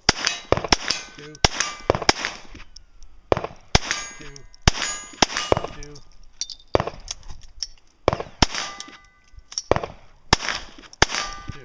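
A long string of handgun shots fired at an uneven pace, about one to two a second, with steel targets ringing with a metallic clang after the hits.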